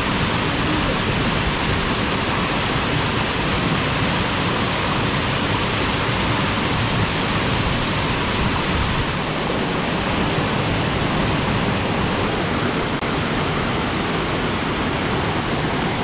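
Waterfall pouring: a steady rush of falling water, its tone shifting slightly a little past halfway.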